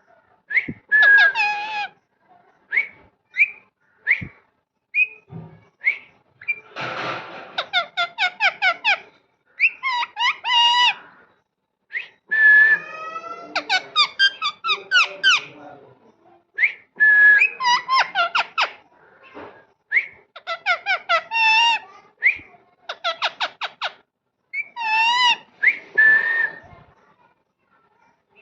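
Parrot whistling and chattering: bursts of short, shrill, wavering whistled notes, often in fast runs of repeated calls, broken by brief pauses and a few single chirps.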